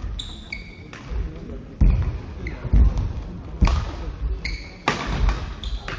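Badminton rally: the shuttlecock is struck sharply by the rackets roughly once a second. Between the hits, shoes give short squeaks on the court floor and footfalls thud.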